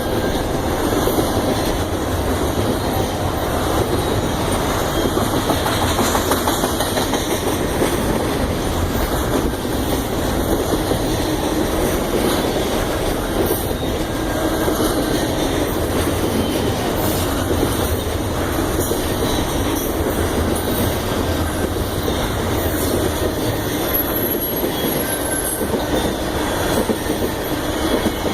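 Union Pacific train's cars rolling past on the rails, a steady loud rumble with the wheels clicking over rail joints and now and then a faint high wheel squeal.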